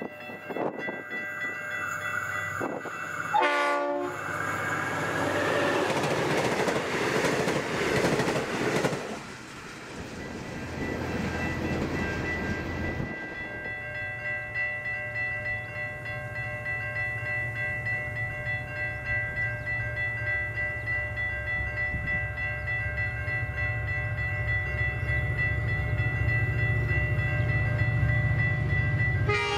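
A diesel-hauled passenger train passes close by with a loud rush of wheel and engine noise, and a short horn blast about three and a half seconds in. About thirteen seconds in the sound changes to a diesel-hauled grain train approaching from a distance. Its engines make a low drone that grows steadily louder, with several steady high-pitched tones over it.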